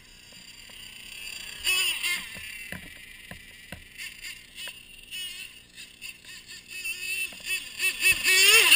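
Motor of a radio-controlled model snowmobile whining, its pitch rising and falling with the throttle, with scattered light clicks from the track in the snow. It grows loudest near the end, with quick revs up and down as the sled comes close.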